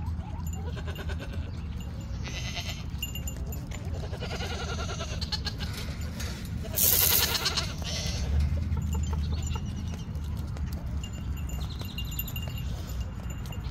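Goats bleating several times, wavering calls every second or two, with one louder, harsher call about seven seconds in.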